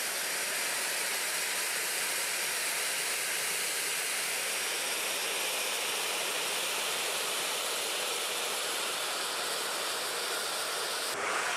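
Two electric ducted fans blowing into a 3D-printed two-cylinder air engine make a steady, jet-engine-like rushing hiss with no chuffing beat. Much of the air is squirting out of the leaky engine rather than driving it.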